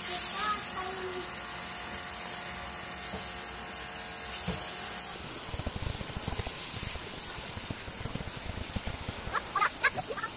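Water jet from a hose-fed spray gun hissing steadily into an air conditioner indoor unit's drain hole, flushing out a drain clogged with dead mosquitoes and slime. From about halfway, irregular low thumps and splashing join the hiss.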